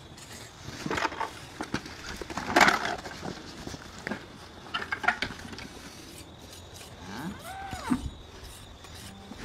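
Irregular scrapes, rustles and knocks of a slaughtered cow's hide being cut and pulled off the carcass by hand, with a short rising-and-falling call about three quarters of the way through.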